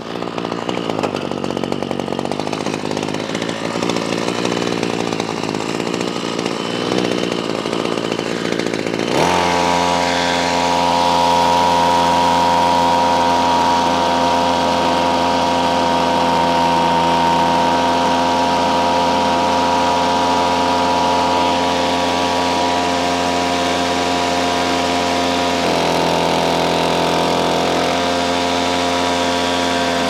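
Ryobi CS26 string trimmer's small two-stroke engine running at high revs while the carburettor's high-speed mixture screw is turned left and right to find the best setting. For about nine seconds it runs rough and uneven, then it jumps to a louder, steady high-pitched note that holds, with a brief change in pitch about 26 seconds in.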